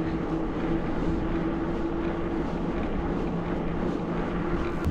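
Steady hum and road noise of a loaded mountain bike rolling along a paved road.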